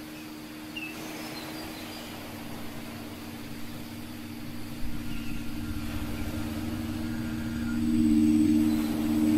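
Two steady low sustained tones of an ambient drone, swelling louder about eight seconds in and cutting off suddenly at the end, over a faint outdoor hiss with a few short bird chirps.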